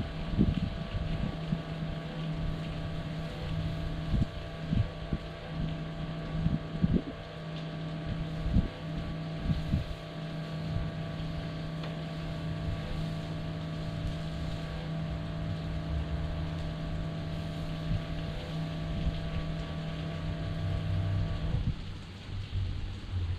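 A Flojet 12-volt soft-wash pump running with a steady hum, cutting off abruptly near the end. Gusts of wind buffet the microphone with low rumbling thumps during the first half.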